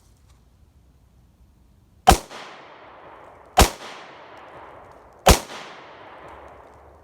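Three shots from a Smith & Wesson M&P Shield .40 S&W pistol, fired about a second and a half apart, each followed by a long rolling echo.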